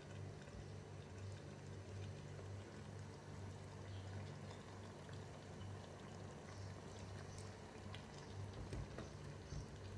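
Faint, quiet bubbling of a pot of pork igado stew simmering on a gas stove, over a steady low hum, with a few small ticks.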